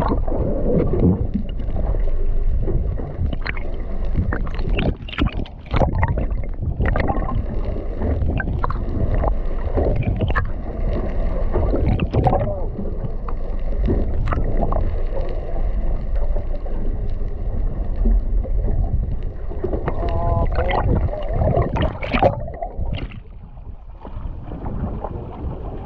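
Sea water sloshing against a small boat's hull with wind rushing on the microphone, and repeated knocks and clatter on the boat as the crew handle a hooked shark at the side.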